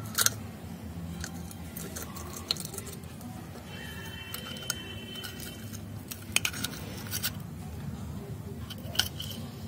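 Key going into and turning in a stainless-steel padlock, the lock handled in the fingers with a series of sharp metal clicks and clinks.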